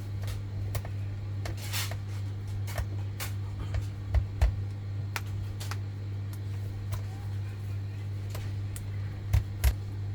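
Steady low hum with scattered light clicks, and two pairs of soft thumps, about four seconds in and again near the end.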